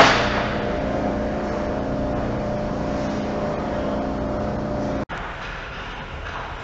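Indoor ice-rink ambience: a steady mechanical hum with several held tones. It opens with a sharp impact that rings off in the hall. About five seconds in, the sound drops out for an instant and a quieter, duller rink ambience follows.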